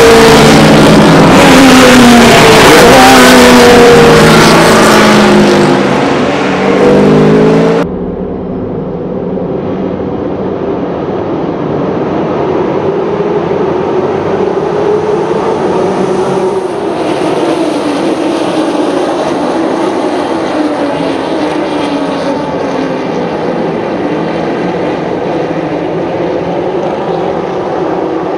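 Super 6000 class stock race cars with V8 engines running past loud, their engine notes rising and falling as they accelerate and shift. About eight seconds in it cuts to a quieter, steady engine drone that runs on.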